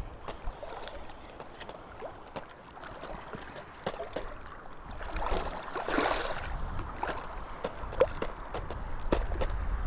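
Sea waves washing over a shallow reef, one surge swelling and fading about five to seven seconds in, with scattered small clicks and some wind rumble on the microphone.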